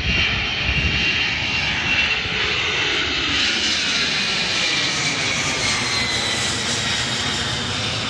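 Airbus A310-300's twin turbofan engines at takeoff power as the airliner climbs out overhead: a steady jet roar with a high whine that slowly falls in pitch as it passes and moves away.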